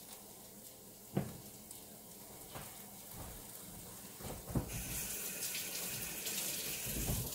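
A few light knocks, then a kitchen tap runs with a steady rush of water from a little past halfway in and is shut off near the end.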